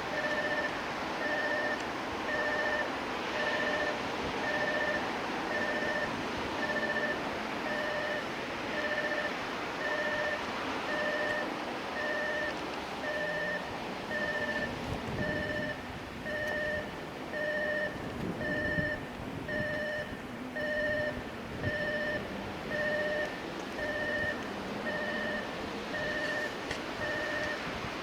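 Railway train-approach warning alarm sounding an electronic beep that repeats evenly, about three beeps every two seconds, over steady background noise with some low rumbling partway through.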